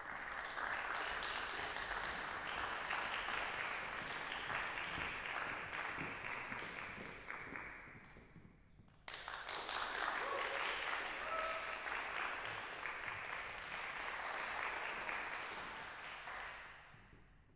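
Audience applauding. The clapping dies down about eight seconds in, starts again abruptly a second later, and fades out near the end.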